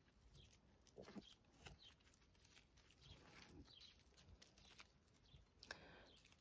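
Near silence with faint, scattered grunts and snuffles of kunekune piglets rooting on dry ground, a few short sounds about a second apart.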